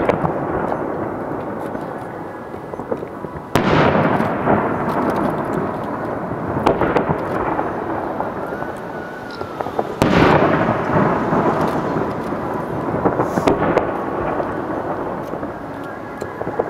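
Fireworks shells bursting with deep booms: two big ones, about three and a half seconds in and about ten seconds in, each trailing off into a long rolling rumble, with smaller pops and crackles between them.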